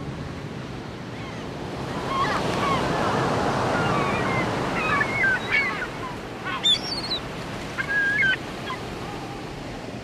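Ocean surf washing on a beach, a steady rush that swells in the middle, with several gull cries from about two to eight seconds in.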